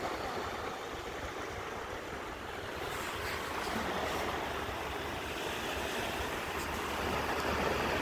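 Small, calm sea waves washing onto a sandy beach: a steady, soft wash of surf that grows a little louder in the second half.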